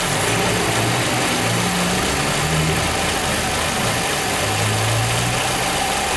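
Peugeot 206 1.4 four-cylinder engine idling steadily, with a noise that was first blamed on the power steering running short of fluid. The reservoir turns out to be only slightly low, so the pump is thought to be fine, and the mechanic suspects dirt in the steering system.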